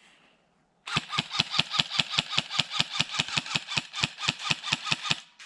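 Airsoft rifle firing a rapid string of about twenty-five shots at roughly six a second, each a sharp crack with a brief mechanical ring. The burst starts about a second in and stops shortly before the end.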